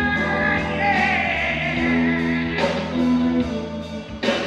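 Reggae band playing, with singing and a held, wavering vocal note about a second in.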